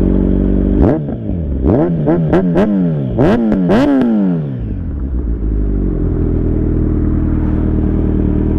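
Kawasaki Z900's inline-four through an Akrapovič full-system exhaust, blipped hard about half a dozen times in quick succession, each rev rising and falling sharply with a few sharp cracks at the peaks. It then settles back to a steady drone.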